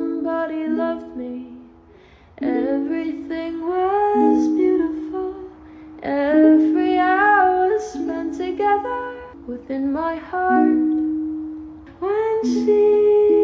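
Background music: a gentle song, a voice singing in phrases over a plucked-string accompaniment.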